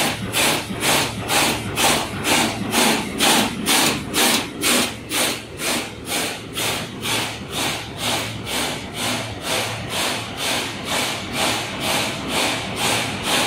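Bobst SP 106 E automatic flatbed die-cutter running, cutting and creasing with stripping: its press cycle beats regularly about twice a second over a steady low hum.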